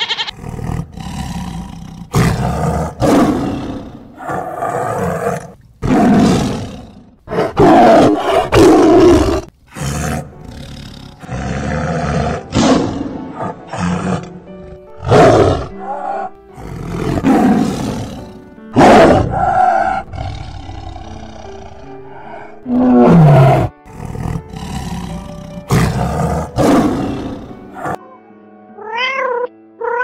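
Lions roaring, well over a dozen loud roars in a row, each a second or two long, over soft background music. Near the end a cat meows.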